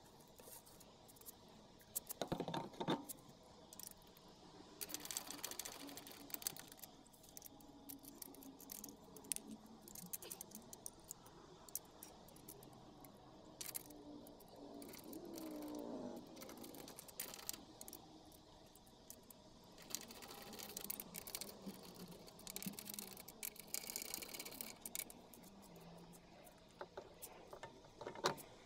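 Scattered metallic clinks, clicks and scrapes of lug nuts and a car wheel being handled and threaded onto the hub by hand. A few louder knocks come a couple of seconds in and near the end.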